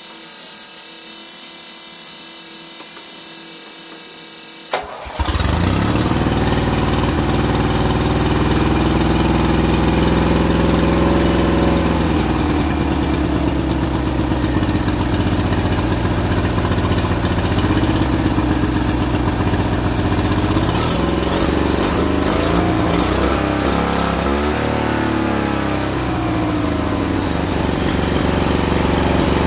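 Turbocharged twin-cylinder Briggs & Stratton mower engine, fed through a blow-through motorcycle carburetor, catching about five seconds in after a fainter steady hum. It then runs loudly, its revs rising and falling.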